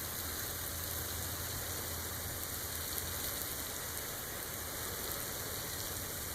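Water flowing out of a pressure washer's spray gun with the engine off, the trigger held to bleed air from the pump and hose: a steady hiss.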